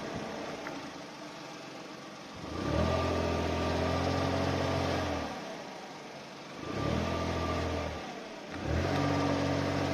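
Suzuki Spacia MK53S driving at low speed, with the abnormal droning hum that the owner is documenting. The hum swells in three times, starting about two and a half seconds in, again near seven seconds and near nine, each time rising slightly in pitch as it comes in.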